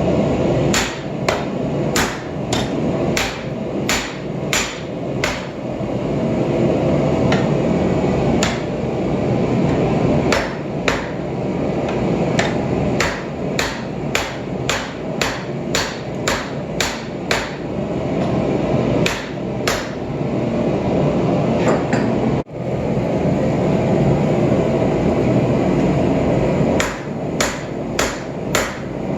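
Hand hammer striking a hot Damascus steel billet on the end of a 1-inch sucker rod used as an anvil, drawing the steel down. Sharp ringing blows come in runs of about one to two a second, with short pauses, over a steady rushing noise.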